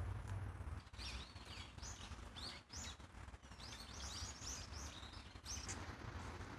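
Small birds chirping: a run of short, quick high-pitched calls from about a second in until near the end, over a steady low outdoor rumble.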